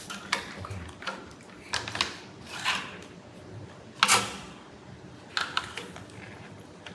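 A small toy drum kit being tapped and handled with a drumstick: irregular sharp taps and clicks, the loudest about four seconds in.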